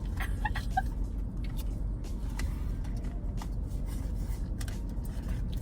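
Steady low rumble inside a parked car, with a few faint clicks and rustles.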